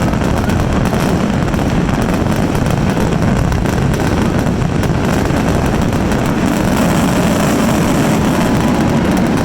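Fireworks finale barrage: many shells bursting in quick succession, their bangs running together into a continuous loud rumble with crackling.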